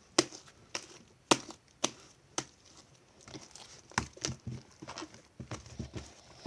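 Slime being squeezed and stretched by hand, giving sharp clicks and pops, about one every half second at first, then a run of smaller crackles.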